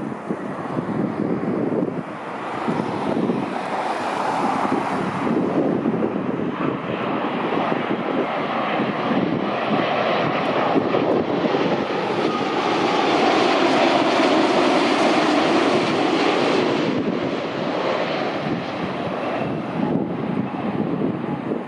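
Heavy jet airliner passing close on its landing approach, a rushing engine noise that builds, is loudest about two-thirds of the way through, then fades away.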